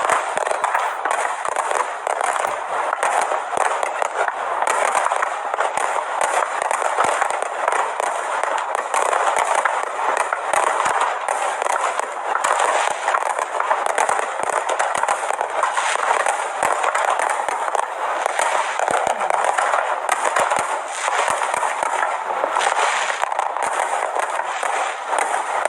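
Aerial fireworks display: a dense, continuous crackle and popping with many sharp bangs close together, steady in level throughout.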